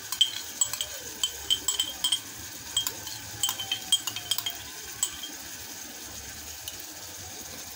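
Beef and tomatoes frying in a metal pot: irregular crackling pops over a steady sizzle, the pops thinning out after about five seconds.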